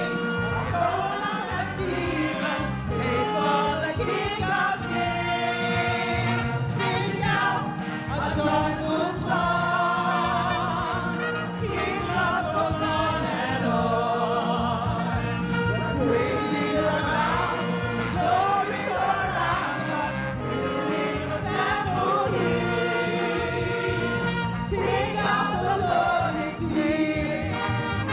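Gospel choir singing a praise chorus behind a woman's lead vocal on a handheld microphone, with steady instrumental backing.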